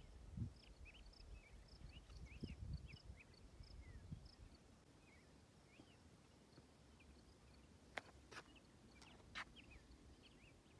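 Faint outdoor quiet with small birds chirping, short high notes repeated about three times a second among little rising and falling chirps. Wind gusts on the microphone in the first few seconds, and three or four sharp clicks near the end.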